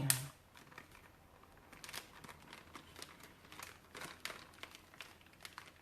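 Plastic zip-lock bag crinkling faintly as it is handled and pressed shut, with scattered soft clicks.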